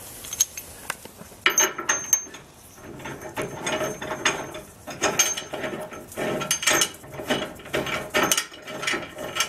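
Metal clicking and scraping inside a truck's steel frame rail as a frame-support bolt is turned by hand into a flange nut held by a wrench. Clusters of sharp clicks come about once a second after a brief quiet start.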